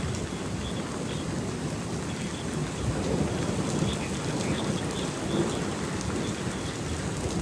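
Steady rain falling during a thunderstorm, with a low rumble of thunder under it.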